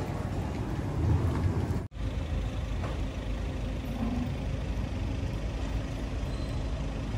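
City street noise: a steady low rumble of traffic, with a heavy vehicle such as a truck or bus passing. The sound cuts out abruptly for an instant about two seconds in.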